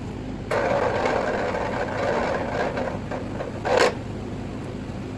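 Powered wire-stripping machine running while a heavy 3/0 cable is fed through its geared blades: a rasping grind from about half a second in to about three seconds as the insulation is cut, then a short louder scrape near four seconds.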